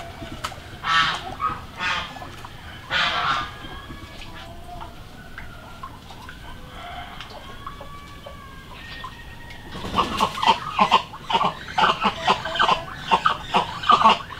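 Chickens clucking: a few separate calls at first, then a fast run of clucks from about ten seconds in.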